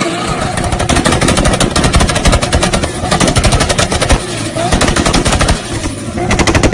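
Rapid, machine-gun-like string of exhaust backfires from a drifting Nissan Silvia S14, the anti-lag pops coming many times a second, starting under a second in with a short lull near the end.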